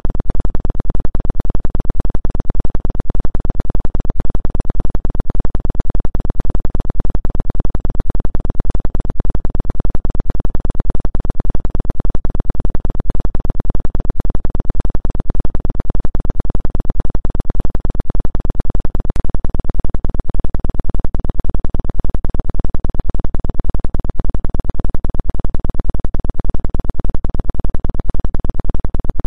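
Synthesized electronic tone sold as a 2 Hz 'acupuncture' healing frequency: a steady, unchanging drone with a fast, even pulsing, heaviest in the deep bass.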